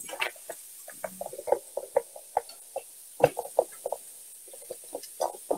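Wire whisk clicking against the sides of a stainless steel saucepan as milk is whisked into a butter-and-flour roux for béchamel. The clicks come quickly and irregularly, several a second, some louder than others.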